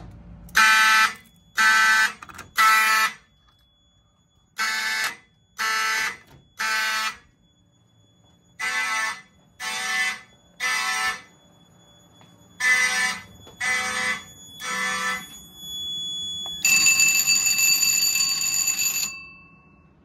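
Mechanical fire alarm horns blaring in a temporal three-pulse pattern: four groups of three short buzzy blasts, each group followed by a longer pause. Near the end a steady higher-pitched tone sounds for about two and a half seconds, then the alarm cuts off.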